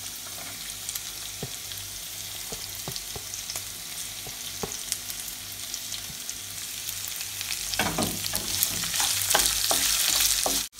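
Hot oil with mustard seeds, urad dal and green chilli sizzling with scattered pops, growing into a louder, denser crackling sizzle about eight seconds in as chopped onions go into the pan and are stirred with a wooden spatula.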